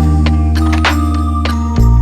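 Background music: a steady instrumental track with sustained bass notes and regular percussive beats.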